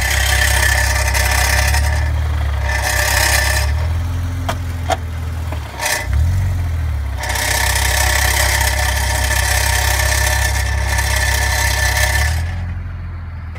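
BMW E46 330Ci's engine running, with a loud rattling clatter from underneath the car that comes in long stretches and drops away in a quieter spell midway, where a few clicks sound. The owner hears this rattle when he releases the clutch, and its cause is unknown to him.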